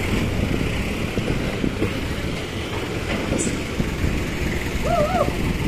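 Steady low engine rumble with a dense, even texture and no single event standing out.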